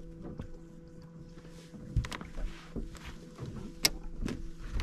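Steady electric motor hum from a bass boat, with a few sharp knocks and clicks of gear being handled on the deck about two seconds in and near the end.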